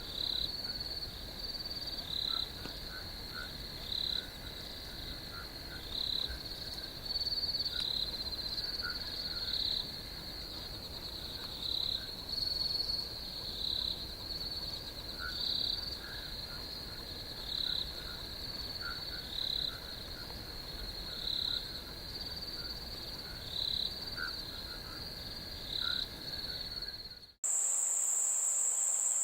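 Night insect chorus trilling steadily, swelling louder about every two seconds, with faint short chirps lower down. Near the end it cuts abruptly to a different recording: a single steady, higher-pitched cricket trill.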